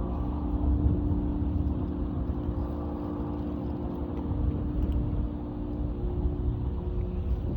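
Boat engine running at a steady pitch, a constant drone over a low rumble.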